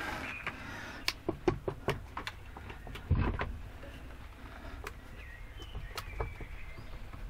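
Scattered metal clicks and knocks as a Suzuki RG500 cylinder barrel is rocked and eased up its studs, stuck on the locating dowels at the base. A heavier knock comes about three seconds in.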